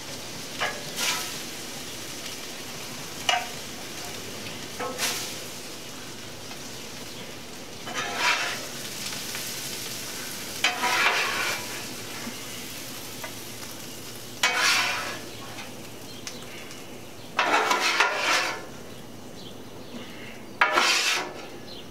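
Bowfin fillets sizzling on a hot Blackstone flat-top griddle, a steady hiss broken every few seconds by a metal spatula scraping briefly across the steel top as pieces are lifted off.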